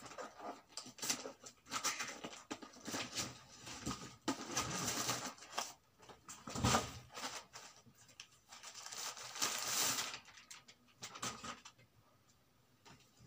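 Gift wrapping paper and plastic packaging rustling and crinkling as presents are unwrapped by hand, in uneven bursts. The loudest crackle comes about seven seconds in, and it goes quieter over the last second or two.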